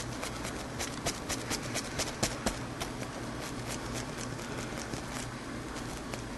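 A run of sharp, irregular clicks, a few a second, over a steady low hum.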